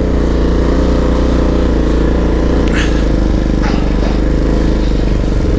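ATV engine running at steady revs, a low, even drone that holds one pitch, with rushing noise on the microphone.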